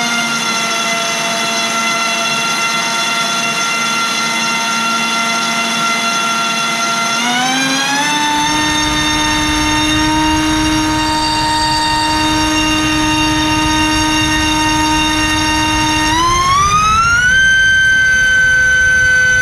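LDpower 2305 2600kv brushless motor spinning an HQ 5040 tri-blade propeller on a thrust stand: a steady whine that steps up in pitch twice, about seven seconds in and again near the end, as the throttle is raised and the current draw climbs.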